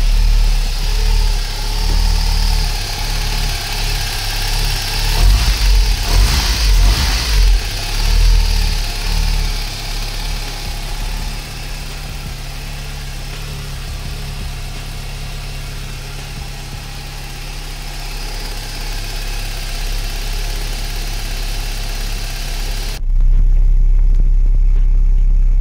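Opel Vectra A's 2.0-litre eight-valve four-cylinder engine (C20NE) running at idle, louder and more uneven for a few seconds early on. About 23 seconds in the sound changes abruptly to a steady low drone as it is heard at the tailpipe of the new catalytic converter and rear exhaust.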